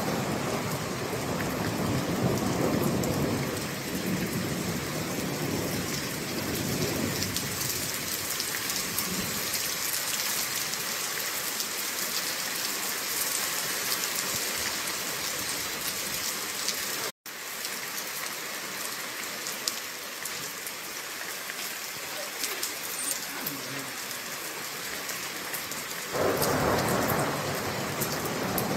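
Heavy thunderstorm rain falling on a street, a steady hiss of drops, with thunder rumbling through the first few seconds. The sound cuts out for an instant a little past halfway, and a sudden louder rumble comes near the end.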